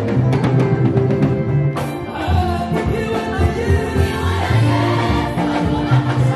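A choir sings a Swahili gospel song over a band, with drum strokes and a deep bass line.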